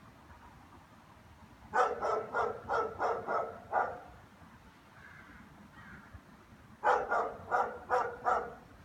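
German shepherd barking in two quick runs: about seven barks, a pause of about three seconds, then about five more.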